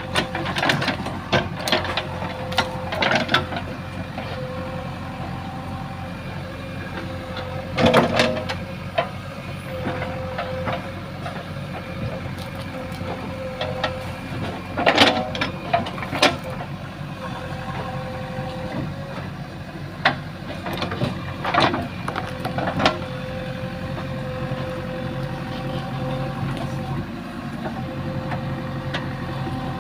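JCB 3DX backhoe loader's diesel engine running steadily, with scattered sharp knocks and clanks from the machine at work, the loudest about 8 and 15 seconds in.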